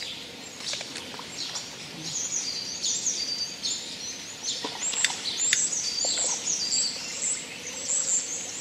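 Small birds singing in quick runs of high, sweeping chirps, with a few sharp clicks among them.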